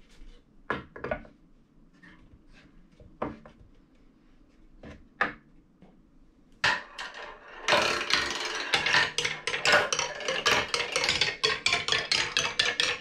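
A few separate wooden knocks as the toy pieces are set in place, then from about seven seconds in marbles running down two wooden Calacolo marble trees, clacking from leaf to leaf in a quick, dense run of clicks that keeps going.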